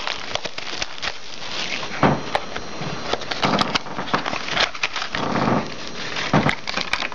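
Trading cards and a cardboard box being handled: cards slid and shuffled, with rustling, small clicks and a few soft knocks.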